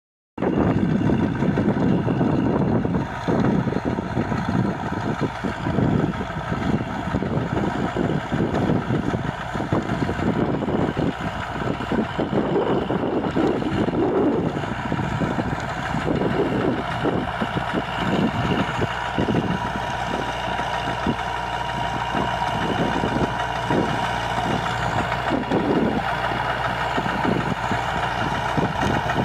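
Half-track farm tractor's diesel engine running steadily under load as its rear rotavator tills dry soil, with a thin steady whine and an uneven churning beneath the engine note. The sound drops out briefly at the very start.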